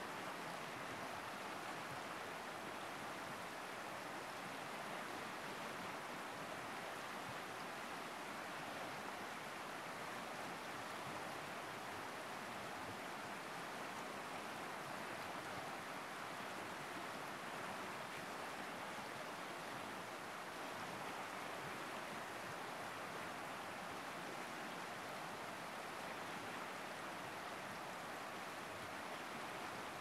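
Wide river rushing over shallow rapids: a steady, even rush of water with no change in level.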